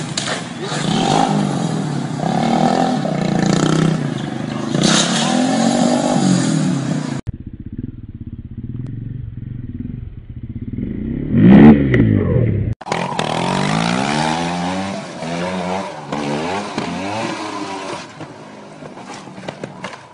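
Motorcycle engines running and revving across three short clips cut together. The loudest moment, about twelve seconds in, is one engine's pitch climbing sharply and falling away again.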